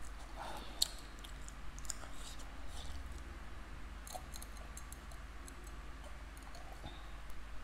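Faint mouth clicks and small wet smacks of a person eating and drinking from a glass, with one sharp click about a second in, over a low steady hum.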